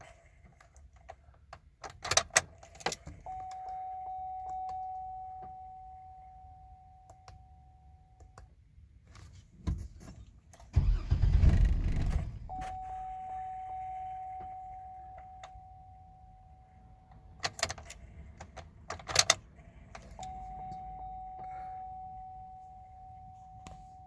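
A vehicle that won't start: keys jangling and clicking, and a steady electronic warning tone that sounds three times for several seconds each. About eleven seconds in, a short low rumble follows a thump, like a brief crank that doesn't catch.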